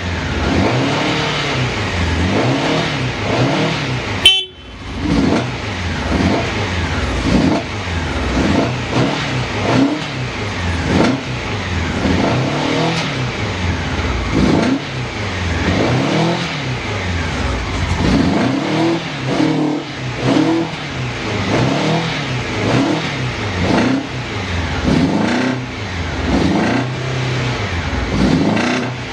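Honda CBX750F Bol d'Or inline-four engine running with its throttle blipped over and over, the revs rising and falling roughly once a second. A sharp click about four seconds in is followed by a brief dip.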